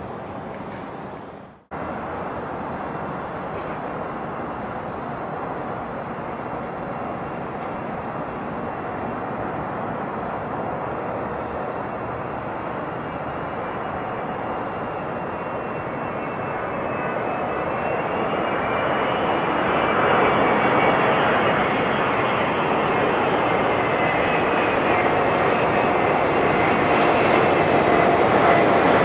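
Airbus A380-861's four Engine Alliance GP7200 turbofans on final approach: steady jet engine noise that grows louder as the airliner nears, with a faint whine coming in near the end. The sound cuts out for a moment about a second and a half in.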